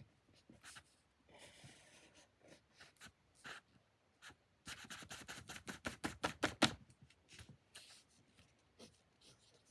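Writing by hand on paper: scattered small taps and scratches, then a quick run of strokes, about nine a second for two seconds, growing louder before it stops.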